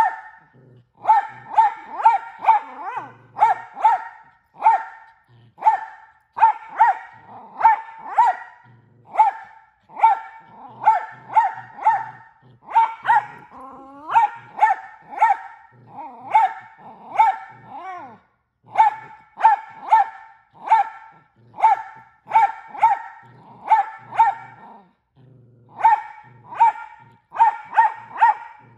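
Mini Australian Shepherd barking over and over in sharp, high barks, one to two a second with only brief pauses: excited play barking during a tug-of-war game with a toy.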